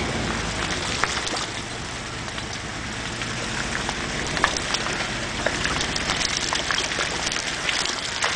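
Truck tyres churning slowly through thin, soupy mud: a steady wet sloshing, with many small spatters of mud flicking against the wheel well and body.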